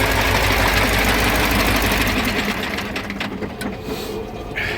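KamAZ V8 diesel engine idling evenly with a fast, regular mechanical ticking, running smoothly after a loose injector on the third cylinder was replaced. About two seconds in the deep engine sound drops away, leaving a quieter sound with scattered ticks.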